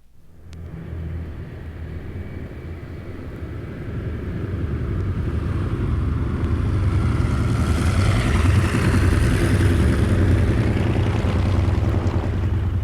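Propeller plane's piston engine running as the aircraft taxis: a steady low drone that fades in, grows louder over several seconds and peaks about eight to ten seconds in, then eases slightly.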